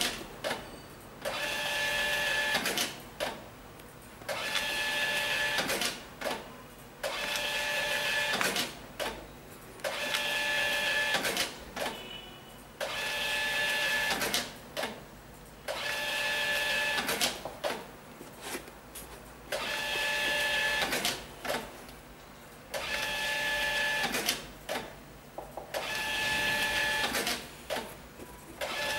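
A small motorised machine running in a regular cycle: about a second and a half of whine, then a short pause with clicks, repeating about every two seconds.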